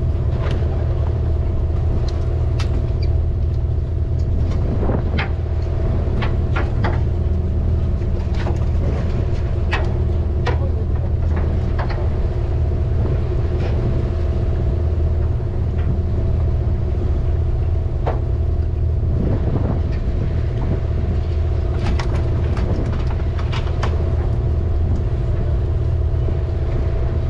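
The party fishing boat's engine running steadily, a low rumble with a constant hum over it. Scattered sharp clicks and knocks come through now and then.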